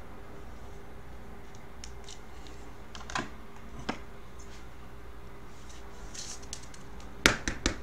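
Light clicks and taps of a clear plastic card holder being handled: single taps about three and four seconds in, then a quick cluster of sharper clicks near the end. A faint steady hum lies underneath.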